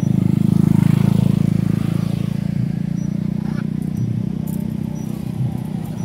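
A motor vehicle engine running steadily, a low pulsing hum that swells about a second in and then eases off slightly.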